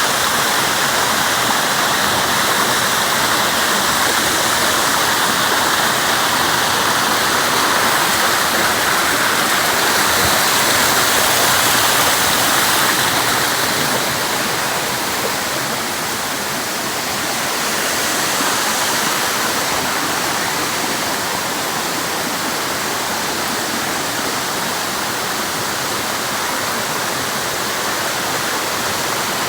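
Waterfall pouring steadily, a continuous loud rush of falling water.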